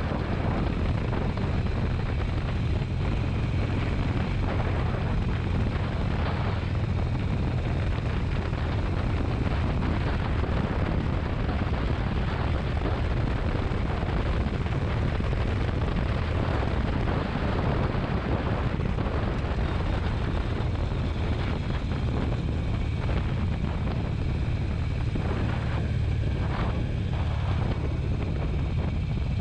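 Motorcycle riding along at a steady pace: a constant low engine drone mixed with an even rush of wind and road noise.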